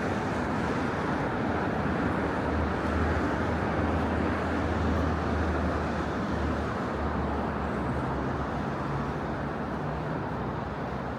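Steady road traffic noise: a continuous rush with the low hum of a motor vehicle's engine running through it.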